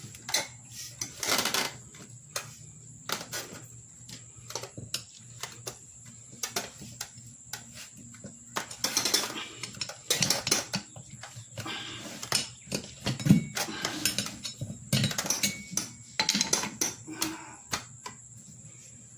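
Irregular metal clinks, knocks and scrapes of hand tools prying a riding lawnmower tire's bead off its wheel rim, the loudest knock about two-thirds of the way through.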